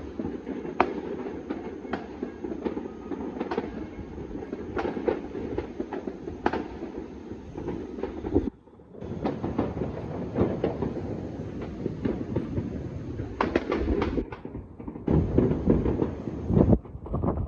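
Countless distant New Year fireworks and firecrackers going off at once across a city: a continuous rumbling crackle, with sharper single bangs standing out every second or so. The sound briefly cuts out about halfway through and again near the end.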